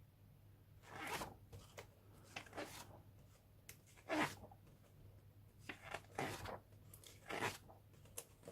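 Pages of a large hardback book being turned one after another: several short rustling swishes with quiet gaps between them.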